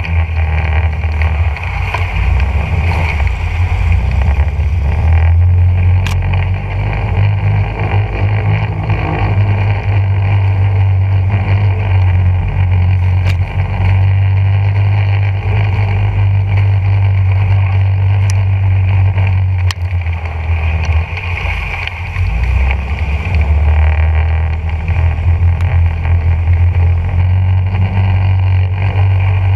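Engine of the machine carrying the camera running steadily, a loud low drone that dips briefly a little past two-thirds of the way through, with a few sharp ticks scattered over it.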